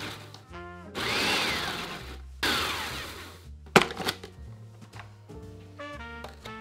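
Food processor pulsing graham crackers and brown sugar into crumbs in short bursts of about a second, the motor's whine rising and falling with each pulse. A single sharp thunk follows, then background music.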